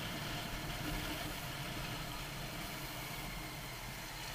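Motorcycle engine running steadily at low speed, with a low rumble under a steady hiss of wind and road noise.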